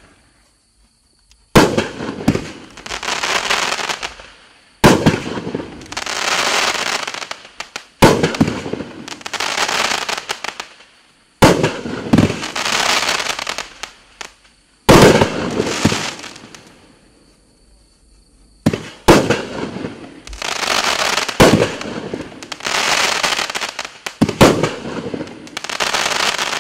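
A 500 g fireworks cake firing its shots one at a time, roughly every three seconds. Each shot is a sharp launch thump from the tube, followed by a couple of seconds of crackling as the strobe stars break and fizz.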